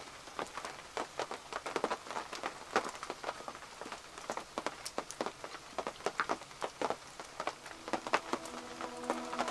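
Heavy rain on and around a canvas tent: a steady hiss broken by many irregular, sharp drop strikes.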